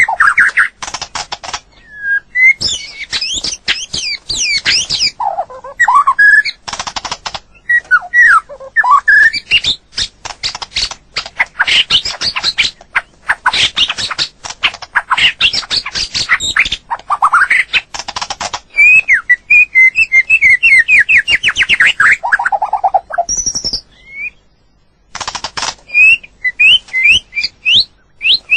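White-rumped shama singing: loud whistled phrases that slide up and down, alternating with rapid runs of harsh, clicking notes, with a short break about three-quarters of the way through.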